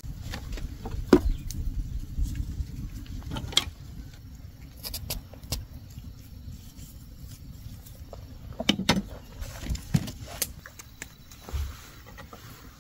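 A low steady rumble with scattered sharp clicks and light knocks from a boiled corn cob being pushed onto a thin bamboo skewer and handled.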